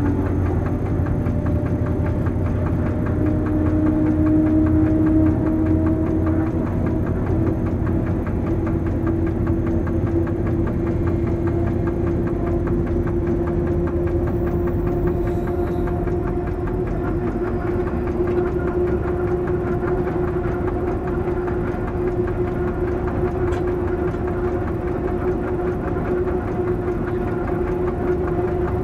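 Diesel engine of the BB 67400-class locomotive BB 67580 running steadily, heard from inside its cab, with a hum whose pitch rises slightly a few seconds in, over the rumble of the wheels on the rails.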